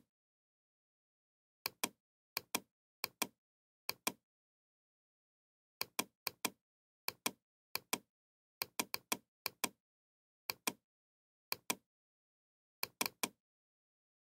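Computer mouse button clicking, each click a quick press-and-release pair, repeated about a dozen times at an uneven pace with dead silence between, as the scrollbar arrow is clicked to scroll down a page.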